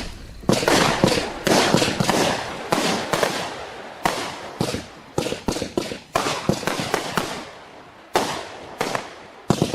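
A 132-shot firework cake firing: sharp shots about two or three a second, each followed by a short fading crackle. The shots ease off a little before two loud shots near the end.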